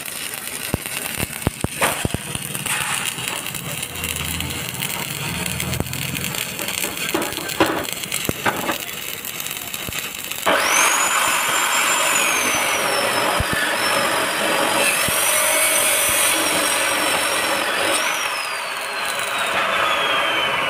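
Stick (shielded metal arc) welding arc crackling and sizzling on steel plate, with scattered sharp pops. About ten seconds in it steps up to a louder, denser steady hiss with a thin high whistling tone that wavers and slides down near the end.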